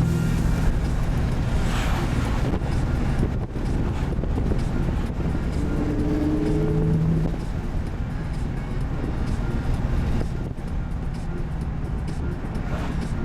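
2005 Pontiac GTO's LS2 V8, running through Kooks headers and a Spintech exhaust, heard from inside the cabin as a steady low drone while driving at fairly even engine speed.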